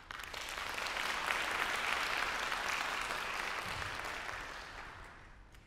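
Audience applauding, the clapping dying away over the last couple of seconds.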